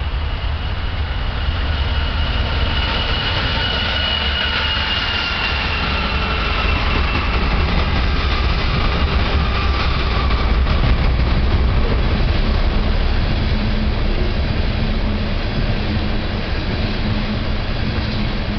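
BNSF oil train of tank cars rolling past at close range: a steady low rumble of wheels on rail. Faint high whining tones slide slightly down in pitch during the first several seconds, and a run of clicks comes about halfway through.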